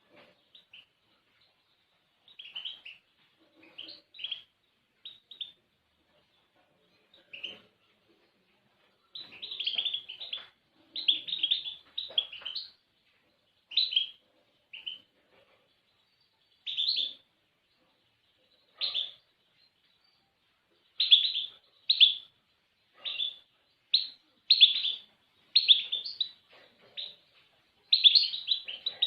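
A small songbird chirping in short separate phrases with silent gaps between them. The phrases are sparse at first and come more often and louder from about a third of the way in.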